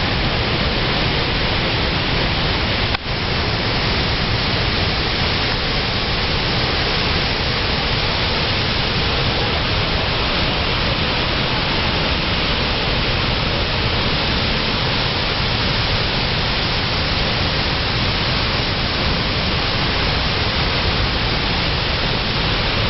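Niagara Falls' water pouring, a loud, steady rush of noise with no variation, broken only by a brief click and dip about three seconds in.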